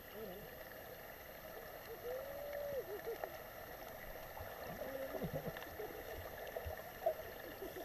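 Muffled underwater sound picked up by a submerged camera: a steady dull wash of water, with a few faint, muffled voice-like calls and gurgles, one around 2 seconds in and another around 5 seconds.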